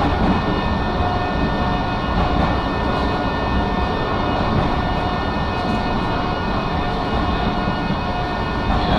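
Blackpool electric tram running between stops, heard from inside: a steady rumble of wheels on rails with a steady high whine above it.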